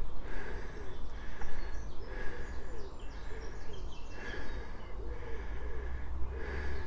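A pigeon cooing: a low, hooting phrase of soft rise-and-fall notes repeated over and over, about two a second. A low rumble comes in near the end.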